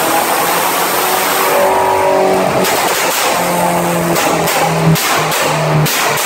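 Tuned Ford Fiesta RS1800's 1.8-litre Zetec four-cylinder engine on throttle bodies with a custom exhaust, being revved. From about two and a half seconds in it is blipped in quick, short bursts, with the exhaust popping and crackling between them, as mapped on its Omex ECU.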